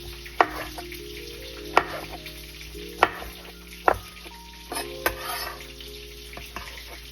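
Food frying in a pan with a steady sizzle, and five sharp clicks of a utensil against the pan. Soft background music plays under it.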